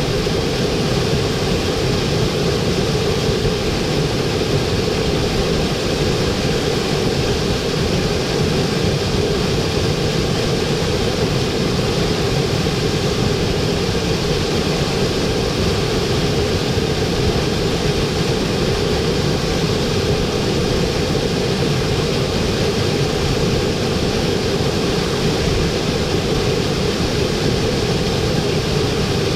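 Waterfall, a steady, unbroken rush of falling water with a full low rumble and no change in level.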